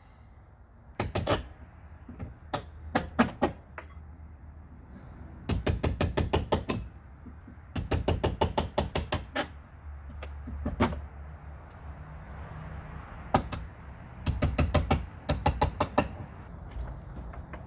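Runs of quick, sharp hammer-like knocks, about eight a second, coming in several bursts of a second or so each, with a low hum between them.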